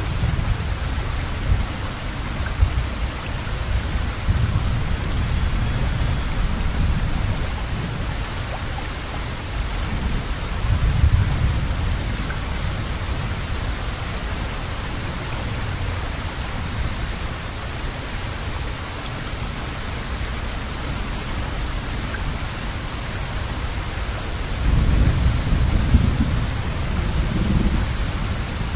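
Steady rainfall, an even hiss without a break. Low rumbles swell up for a few seconds about a third of the way in and again near the end.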